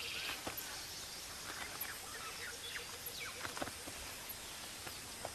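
Quiet wild bush ambience: scattered short bird chirps and quick falling calls over a faint, even background hiss.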